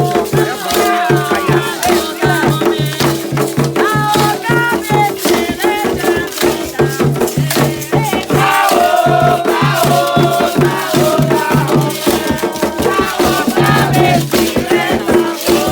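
Candomblé ceremonial music: voices singing over rattles shaken in a steady rhythm, with pulsing percussion underneath.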